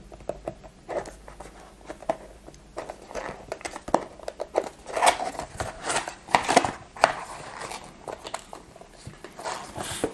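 Hands opening a small cardboard box: a run of scrapes, taps and rubs as the box is slid and the lid worked open, with a few louder scrapes in the middle.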